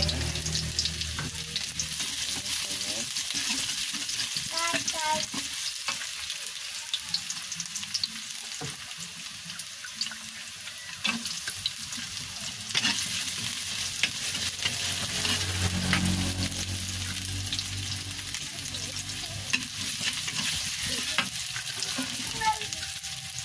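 Food frying in hot oil in a pan, a steady sizzle, with a spatula clicking and scraping against the pan now and then as it is stirred.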